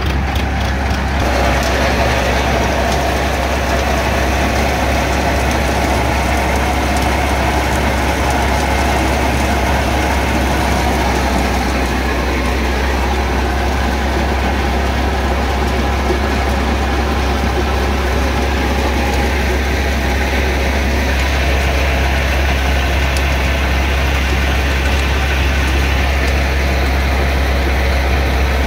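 Tractor diesel engine running steadily, powering a threshing machine through its PTO shaft, with the thresher's drum and V-belts running along with it as one even, loud mechanical hum.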